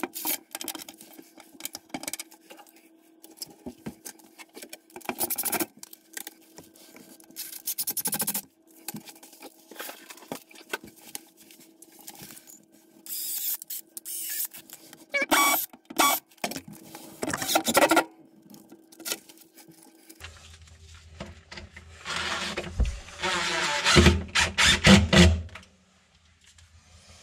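Cordless DeWalt drill-driver fixing a small metal L-bracket to a panel: scattered knocks, clicks and scrapes of tool and bracket handling, then a few seconds of the drill running to drive a screw near the end.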